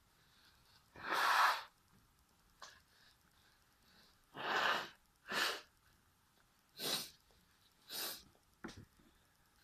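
A person sneezing repeatedly, set off by a tissue poked into the nose. There are several short, noisy bursts of sneezing and sharp breath, and the first one, about a second in, is the loudest and longest.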